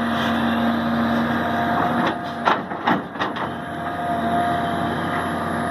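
Diesel engine of a 350D excavator running steadily while digging out a ditch, with a few sharp knocks between about two and three and a half seconds in.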